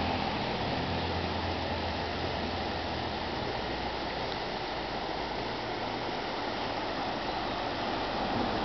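Shallow mountain river rushing over rocks and small rapids, a steady rushing noise.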